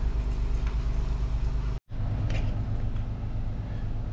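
Steady low mechanical hum, cut off for an instant a little under two seconds in and then resuming.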